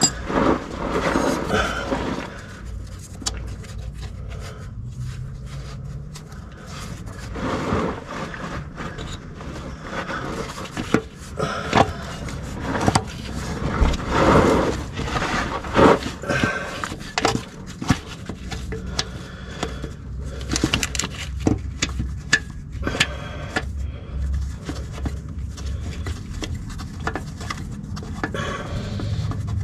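Irregular metal scraping, rubbing and knocking as a loosened Duramax starter motor is worked and wiggled around in the tight space under the engine.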